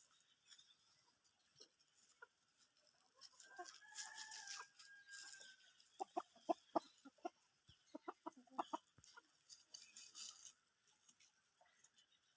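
Chickens clucking in two quick runs of short calls, after one faint, drawn-out rooster crow held for about two seconds a few seconds in.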